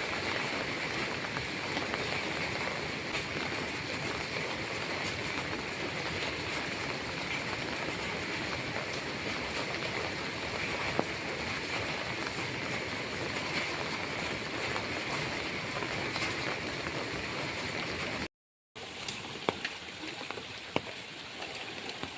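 Flooded Myntdu River running high, a steady rushing noise of fast water. About 18 seconds in the sound cuts out briefly and returns a little quieter, with a faint high whine and a few sharp clicks.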